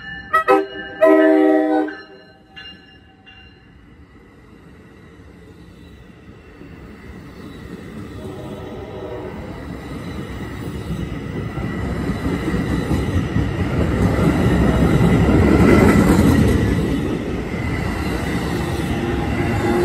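NJ Transit train horn sounding two short blasts and then a longer one in the first two seconds, then a short toot. The commuter train's bilevel coaches then roll past on the rails, a rumble that builds steadily and peaks a few seconds before the end.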